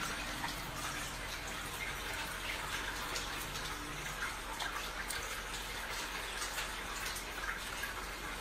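Steady rain: a constant hiss with many small ticks of drops.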